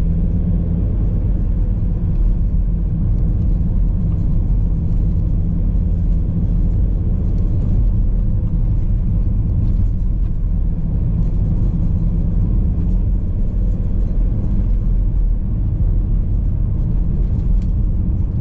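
Car engine and road noise heard from inside the moving car, a steady low rumble as it climbs a long hill.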